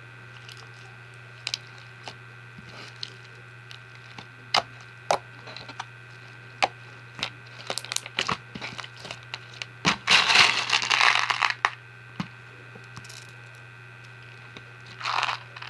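Fishbowl-bead slime being squeezed and pressed: scattered sharp crunchy crackles and pops from the plastic beads, thickening into a dense crackling stretch about two-thirds of the way through and again near the end.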